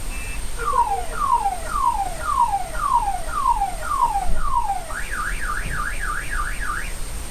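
Car alarm cycling through its tones: a few short beeps, then about eight falling sweeps roughly half a second apart, then a fast up-and-down warble starting about five seconds in.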